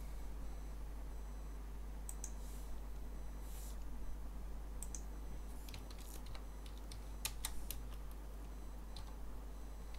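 Computer keyboard typing: scattered keystrokes in short runs with pauses between, over a steady low hum.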